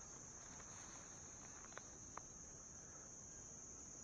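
Faint, steady high-pitched chorus of insects such as crickets, droning on without a break. Two faint clicks near the middle.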